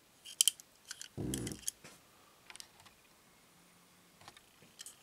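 Small sharp clicks and taps of a diecast metal toy car and its packaging being handled, scattered irregularly, with a short low hum about a second in.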